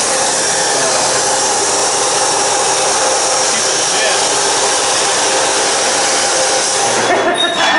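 Loud, steady whooshing noise from a running blower-type machine, with a faint steady hum under it, cutting off about seven seconds in.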